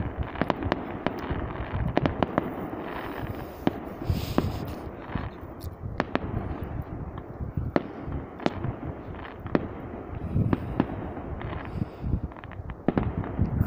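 A fireworks battery (cake) firing: dozens of sharp bangs and cracks at irregular intervals, several a second, over a continuous crackle.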